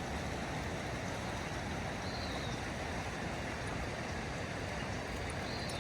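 Mountain creek swollen with snowmelt rushing over rapids: a steady, even rush of water. Two faint short high chirps come about two seconds in and near the end.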